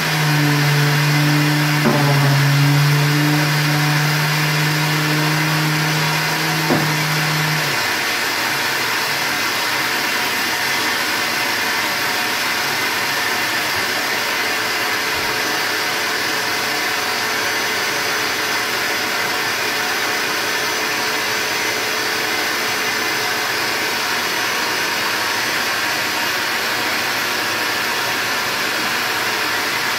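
Canister dust-extraction vacuum running steadily. An electric sander hosed to it runs with a steady low hum for about the first eight seconds, pressed against a painted door frame, then switches off. The vacuum keeps running on its own.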